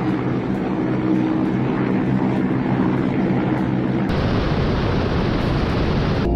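Military helicopters in flight: steady rotor and engine noise with a low hum. About four seconds in it changes abruptly to a louder, rushing rotor and airflow noise heard on board a Ka-52 attack helicopter with coaxial rotors, flying low.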